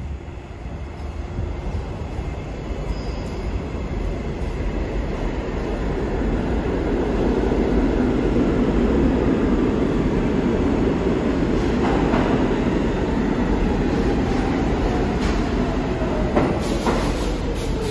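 New York City subway train running through the station, its rumble and wheel clatter building over the first several seconds and then holding steady. Near the end come sharp rail clicks and a whine that falls in pitch.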